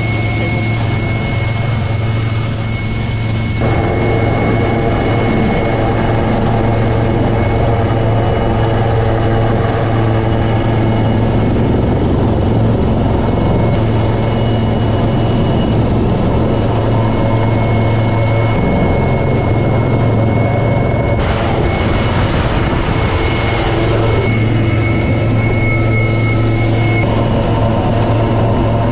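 Wildcat helicopter's twin turboshaft engines and rotors running steadily in a hover, heard from inside the cabin with the side door open. A loud low drone carries a steady high turbine whine, with a few seconds of louder hiss about three quarters of the way through.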